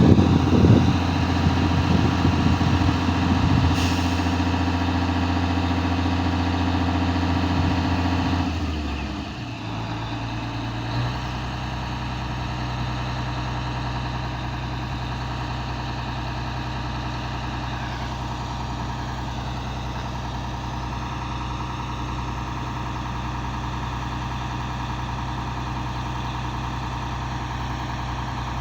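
Heavy machine's engine running steadily, louder at first. About nine seconds in its sound changes and drops, and it settles into a steady idle.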